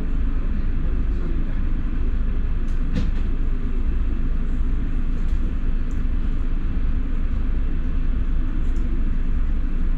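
Steady low rumble of a London double-decker bus heard from inside the passenger cabin, with a few light clicks or rattles now and then.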